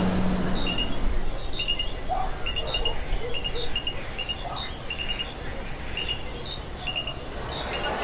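Insects calling: a steady high-pitched drone with short cricket-like chirps in twos and threes repeating every second or so, over a low background rumble.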